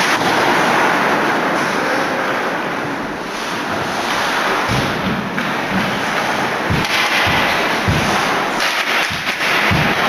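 Loud, steady din of a hockey crowd in an ice arena. Several low thumps come in from about halfway through.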